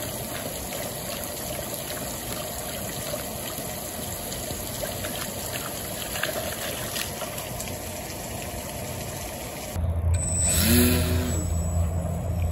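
Steady trickling, lapping water noise. About ten seconds in it gives way to a louder steady low hum with a short whine that rises and falls, and a brief hiss.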